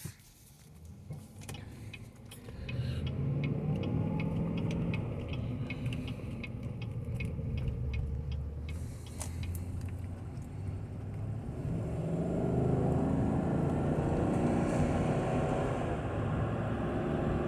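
2020 Chevy Suburban's 5.3-liter V8 and road noise heard from inside the cabin as the truck gets under way, building up a few seconds in and growing louder again about two-thirds through. A quick run of light ticks sounds over the first half.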